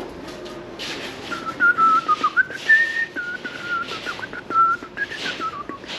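A person whistling a tune: one clear note moving up and down between held pitches, starting about a second in, over some rustling noise.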